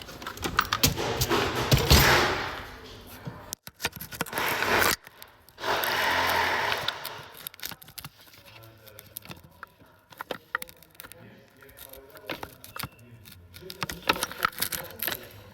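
Work on a car in a workshop: two long hissing bursts, the first at the start and the second about six seconds in, among many sharp clicks and metallic knocks of hand tools.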